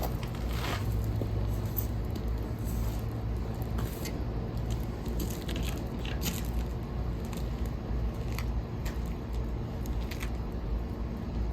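Small fire of dry, punky woodpeckered wood burning, with irregular sharp crackles and pops over a steady low rumble.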